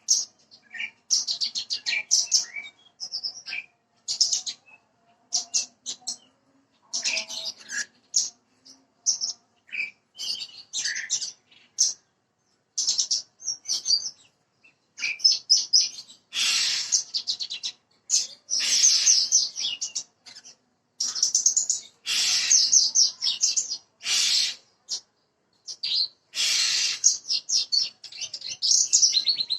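Branjangan (Javan bush lark, parva form) singing: high-pitched phrases of fast chattering trills, each lasting a second or two, repeated with short pauses.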